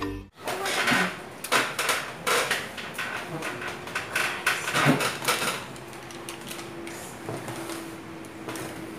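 Intermittent light clicks and knocks of dishes, a spoon and plastic food containers being handled on a table, with a faint steady hum joining about halfway through.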